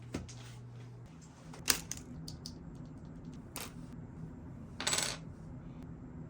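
Small hard keyboard parts clicking and clinking as they are handled and set down: a few separate sharp clicks, a cluster of tiny ticks, and a short rattling clatter about five seconds in, over a steady low hum.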